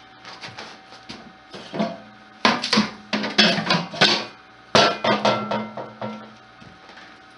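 Metal clattering and knocking with a ringing tone. Two runs of rapid knocks and rattles begin about two and a half seconds in and stop near the end, typical of sheet-metal stovepipe parts or metal tools being handled.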